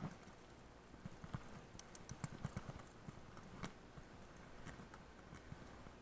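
Faint, irregular knocks and clicks of a mountain bike and loose stones on a rocky trail. They come thickest about two seconds in, with a sharp click a little after.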